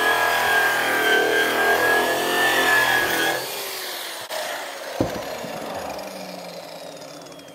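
Handheld electric drum polisher with a paint-stripping wheel running against truck sheet metal, grinding off old paint. About three seconds in it is switched off and its whine falls steadily as the wheel spins down, with a single knock about five seconds in.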